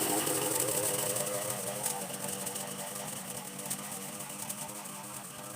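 Two-stroke chainsaw engine running at low speed after a burst of cutting, its sound fading gradually.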